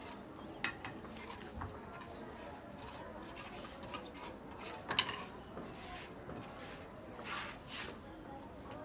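Irregular scraping and rubbing strokes of a hand tool worked against a rough surface, with a sharp tap about half a second in and a louder one about five seconds in.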